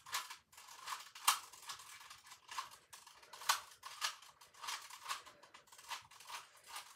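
A plastic Rubik's cube being turned face after face while it is scrambled: quick clicking rattles at about two or three turns a second, uneven in spacing.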